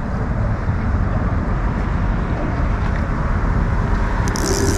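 Steady low rumble of road traffic, with a brief high buzz lasting about a second near the end.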